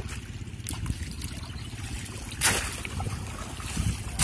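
Water splashing as bamboo polo fish traps are plunged into shallow water. There is a sharp splash about two and a half seconds in and another near the end, over a steady low wind rumble on the microphone.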